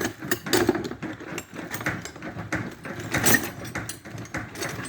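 Ratchet wrench clicking with irregular metallic knocks as bolts are undone on a boat engine being dismantled.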